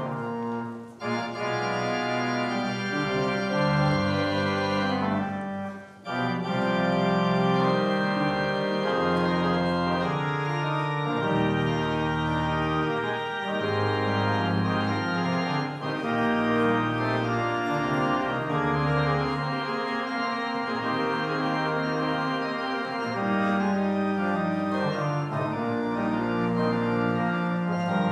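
Organ playing a slow processional piece: held full chords changing from one to the next, with brief breaks between phrases about one and six seconds in.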